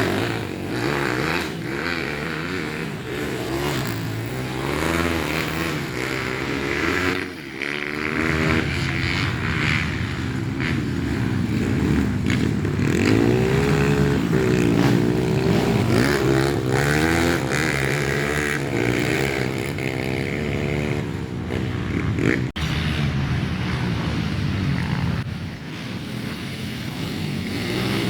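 Trail motorcycles racing, among them a bored-up Kawasaki KLX, the engines revving up and dropping back again and again through the gears.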